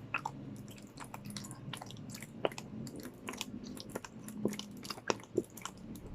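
Clear glue being poured and squeezed out of two plastic bottles into a bowl: a run of irregular soft clicks and pops.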